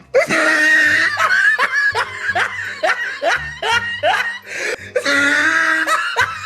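Laughter: a high-pitched voice breaking into a quick run of repeated bursts, about two a second, with longer held stretches near the start and near the end.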